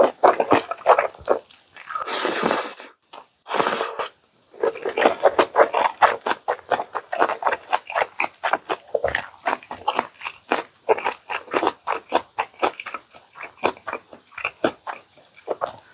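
Close-miked mukbang eating sounds: a person chewing food with rapid wet, crunchy strokes, about four a second. Two longer, louder noisy bursts come in the first four seconds.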